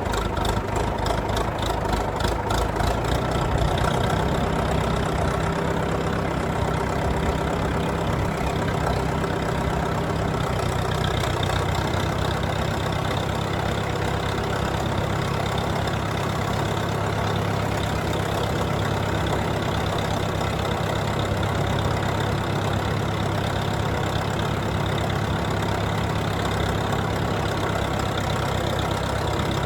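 Engine of a small farm machine used for carrying soil in its bucket, running steadily at work. Its note changes about four seconds in and then holds even.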